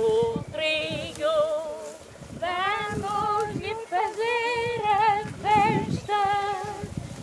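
Women singing a traditional Madeiran harvest work song unaccompanied, in short phrases with a wavering vibrato.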